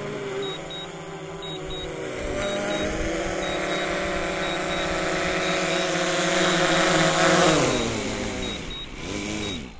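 DJI Phantom 3 Advanced quadcopter's propellers buzzing steadily as it makes a forced low-battery landing right beside the pilot. The buzz grows louder as it comes down, then drops in pitch and fades about eight seconds in as the motors slow. A low-battery warning beeps in quick runs of short high beeps.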